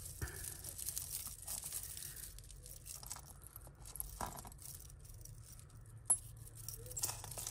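Costume jewellery being handled and sorted by hand: small clicks and clinks of beads and metal pieces, with rustling, and one sharper click about six seconds in.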